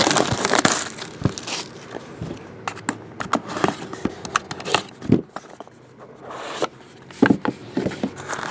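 Trading card box being opened: plastic wrapper crinkling and tearing in the first second and a half, then cardboard and cards handled with scattered light clicks and rustles.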